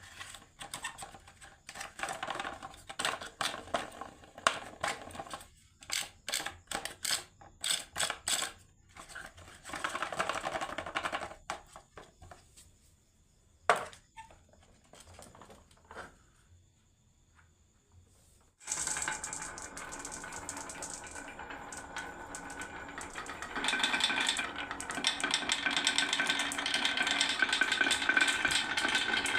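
Marbles clicking and clacking irregularly down a wooden marble run, then a pause with a single sharp click. About nineteen seconds in, a continuous dense rattling clatter starts suddenly and grows louder about five seconds later.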